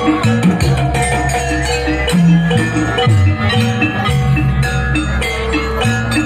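Jaranan accompaniment music from a percussion-led ensemble: drum strokes over a steady repeating pattern of short pitched notes and held low notes that shift about once a second.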